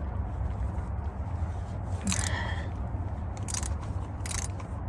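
A few short scrapes and clicks of hand tools working the CV axle bolts, one with a brief metallic ring, over a steady low hum.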